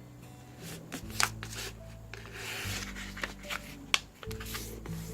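A sheet of paper being folded and creased by hand: rustling and sliding with a few sharp crackles, the loudest about a second in and near four seconds in. Soft background music with held notes plays under it.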